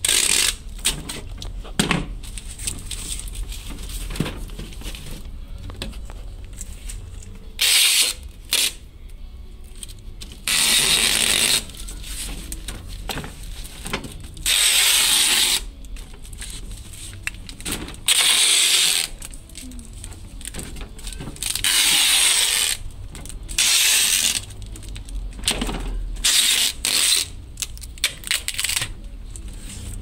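Packing tape pulled off its roll in repeated strips of about a second each, about seven times. Between the pulls, a cardboard box is handled and turned on a table.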